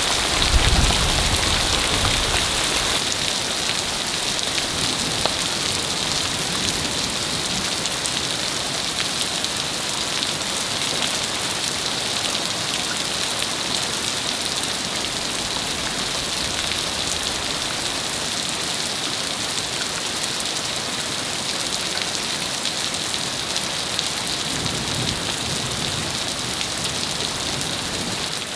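Hail mixed with heavy rain falling steadily, a dense hiss full of small ticking impacts. A low rumble shows under it near the start and again near the end.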